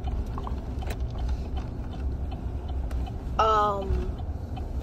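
Steady low road rumble inside a car's cabin, with a few faint clicks. About three and a half seconds in there is one short vocal sound with a slightly falling pitch.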